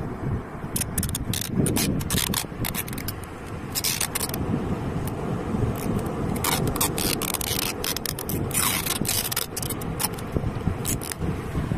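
Clear adhesive tape being pulled off its roll in many short, sharp rips as it is wound around a drink can, over a steady rush of wind and sea surf.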